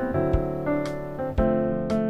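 Background piano music, notes changing about every half second, with a sharp click on each beat about twice a second.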